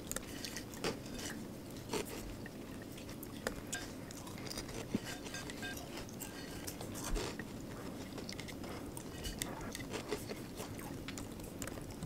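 Scattered small clicks and taps from a MacBook Pro's trackpad and keys being worked, irregular and a few a second, over a low steady room hum.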